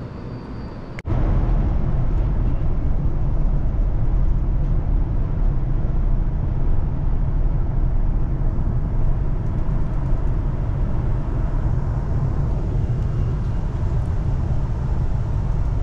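Steady rumble inside a moving electric commuter train carriage, heavy in the low end, starting abruptly about a second in and holding even throughout.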